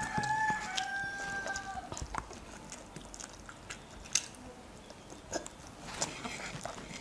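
A rooster crows once, a pitched call of about two seconds in two parts. It is followed by scattered soft clicks and smacks of eating rice and curry by hand.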